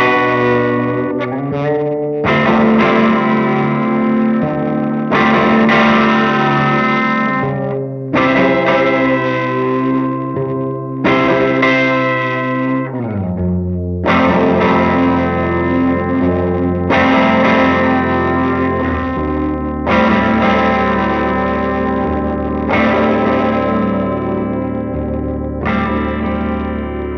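Electric guitar played through the Pequiña Fiera tube amplifier prototype and a 1x12 cabinet, with distortion and effects pedals. Sustained chords are struck about every three seconds, and the bass note drops lower about halfway through.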